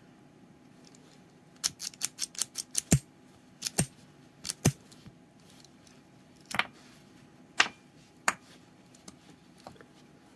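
Small metal clicks and clacks from a miniature 1:3 scale metal 1911 keychain toy pistol as its parts are handled and fitted together. A quick run of clicks comes about a second and a half in, then single sharp clicks every second or so.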